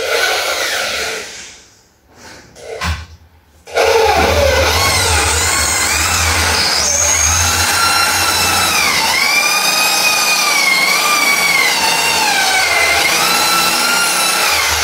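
Power drill boring into a door: the motor runs, stops about a second and a half in, then starts again and runs steadily. Its pitch sags and recovers several times as the bit bites under load.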